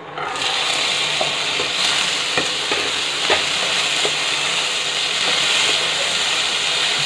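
Chopped onion, tomato, peanuts and green chilli hit hot oil in a kadhai and sizzle loudly, starting suddenly. A wooden spatula knocks and scrapes against the pan a few times as the vegetables are stirred.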